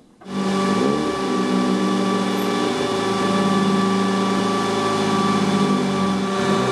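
Opel Calibra ITC race car's 2.5-litre V6 running, cutting in suddenly a moment in and holding a steady note, with a few brief rises and dips in revs.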